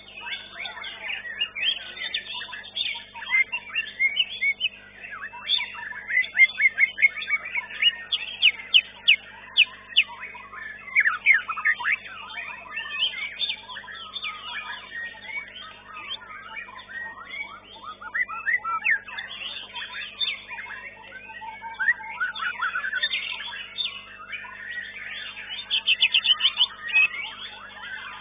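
White-rumped shama (murai batu) singing in a contest cage: a dense, unbroken run of varied whistled phrases and chattering notes, with fast rattling trills about a quarter of the way in and again near the end, over a faint steady hum.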